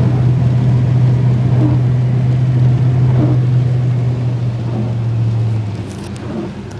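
Truck engine droning steadily, heard from inside the cab while driving, easing off and dropping in level about six seconds in.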